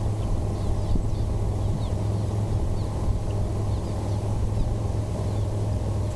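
Barn swallows twittering: many short, faint, high chirps scattered throughout, over a steady low hum that is louder than the birds.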